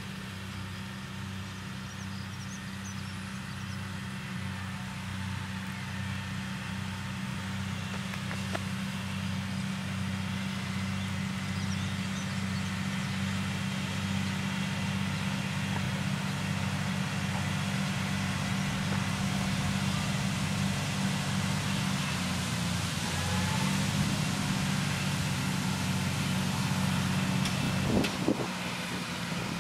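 Deutz tractor's diesel engine running steadily under load while driving its front and side mowers through tall grass, growing louder as it comes closer. A short knock sounds near the end.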